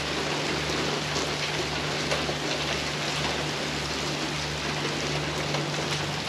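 Steady rain falling, with a low, even hum underneath.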